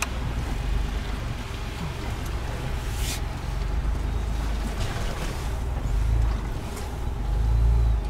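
Low rumble of a 2021 Ford Bronco's 2.7-litre twin-turbo EcoBoost V6 and its tyres, heard inside the cabin as the truck crawls into a shallow muddy water crossing. The rumble swells louder toward the end.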